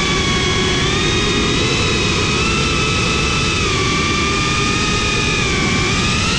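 FPV quadcopter's brushless motors and propellers whining steadily in flight, the pitch drifting slightly up and down with throttle over a rushing noise of air and props.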